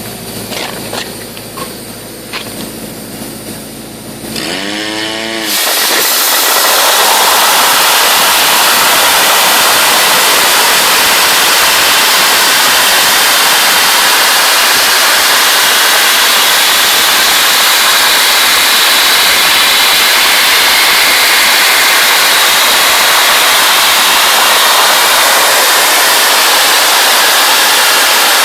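Dry-ice blasting nozzle firing a jet of crushed dry-ice snow against stained wood: after a few seconds of machine hum, a loud steady hiss of compressed air starts about five seconds in and holds.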